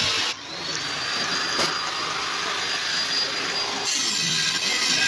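Electric angle grinder on steel plate: the noise drops briefly, then the motor's high whine rises and holds steady. Near four seconds in, the harsh grinding noise of the disc on the steel comes back in full.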